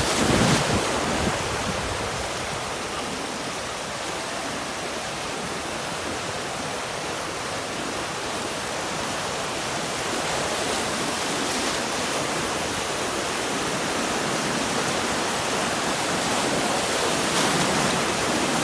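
Sea surf: waves breaking and washing up on a beach in a steady rushing noise that swells a little about a second in and again near the end.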